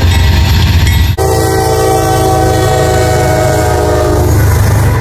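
Diesel freight locomotives running past, with a loud low engine rumble. After an abrupt cut about a second in, a multi-chime air horn sounds one long chord of several notes and stops shortly before the end.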